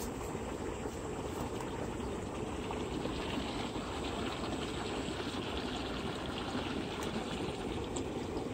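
Wind blowing across the microphone: a steady rushing noise that does not change.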